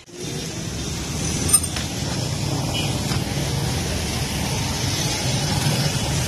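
Street traffic: steady engine and road noise from passing vehicles, with one brief sharp knock about one and a half seconds in.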